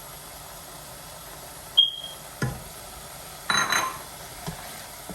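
Kitchen sounds over a faint steady hiss: a short, high electronic beep about two seconds in, a knock, then a louder clatter of utensils with a brief metallic ring.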